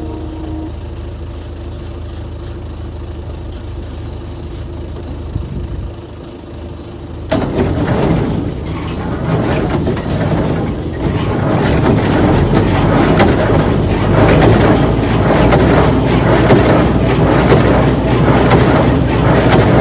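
Engine of farm machinery running low and steady; about seven seconds in, the sound jumps suddenly to much louder, rattling machinery noise that carries on.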